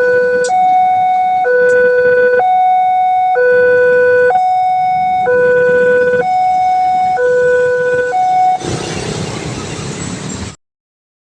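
Railway level-crossing gate alarm siren sounding its two-tone warning, alternating a low and a high tone about once a second, the signal that the barrier is closing for an approaching train. The siren stops a little over eight seconds in, and a loud rushing noise follows for about two seconds.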